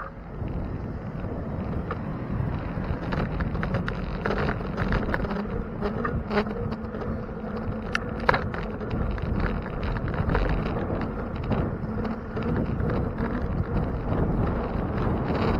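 Riding noise from a bicycle: a steady rumble with a faint buzzing hum and many small rattling clicks.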